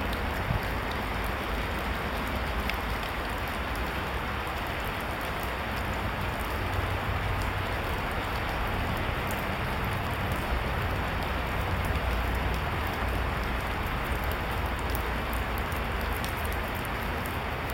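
A steady, even hiss with fine crackling that does not change.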